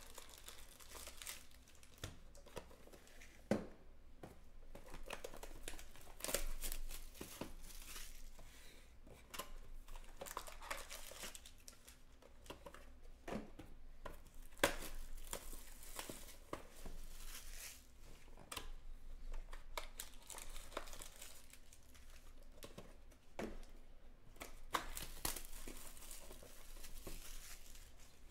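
Trading-card boxes being opened and their foil-wrapped packs handled: irregular crinkling and tearing of wrappers, with scattered sharp taps of cardboard and packs on the table.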